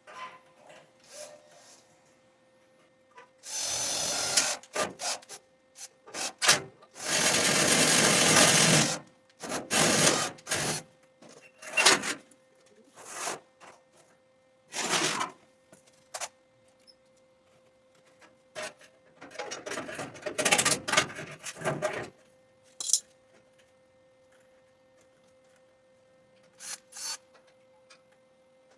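Workshop handling noise: intermittent bursts of scraping and rubbing, the longest about two seconds, over a faint steady hum.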